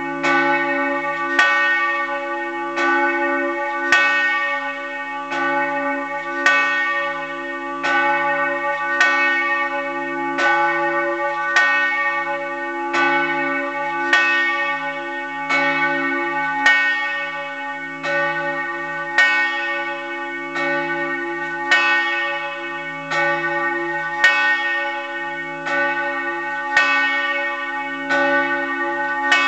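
The church bell 'Peter', tuned to C-sharp and cast in 1930 by the Fischer brothers in Trnava, swinging and tolling a funeral knell. Its clapper strikes about once every second and a quarter, each stroke over a long ringing hum.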